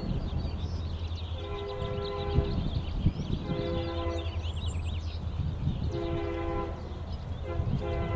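Air horn of an approaching Union Pacific EMD GP40-2 diesel locomotive sounding four blasts, the warning for a grade crossing in a horn zone, over a steady low rumble.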